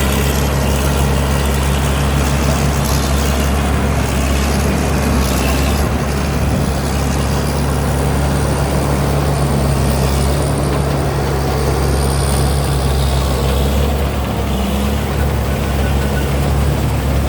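Combine harvester's Cummins diesel engine running steadily under working load, a constant low drone with a faint, slightly wavering high whine above it.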